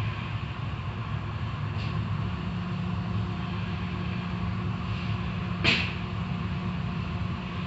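Automatic tunnel car wash heard from inside the car: a steady rush of water spray and machinery over a steady low hum, with one brief swish about five and a half seconds in as the hanging cloth strips sweep the car.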